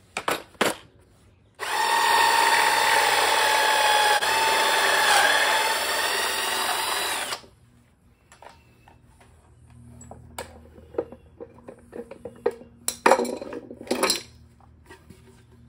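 Power drill boring a pocket hole through a pocket-hole jig into a wooden board: one steady whine of about six seconds that cuts off suddenly. After it come quieter clicks and knocks, and a short noisy burst near the end.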